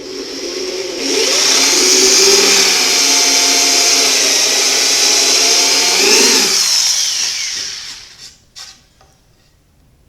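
Power drill with a step bit boring countersink holes in a plywood table top, running steadily, then winding down with a falling pitch near the end, followed by a couple of light knocks.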